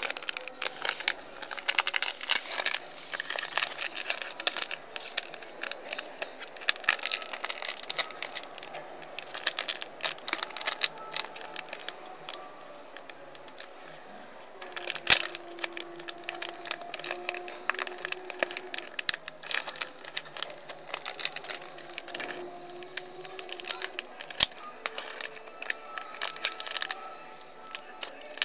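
Plastic toy polybag being crinkled and torn open by hand: a dense, irregular run of crackles and rustles, with a sharp crack about halfway through.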